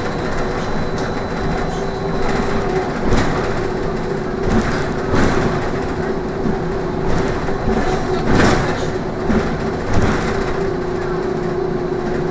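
Inside a moving trolleybus: a steady electric hum over road and tyre noise, with several sharp knocks and rattles from the body, the loudest about eight and a half seconds in.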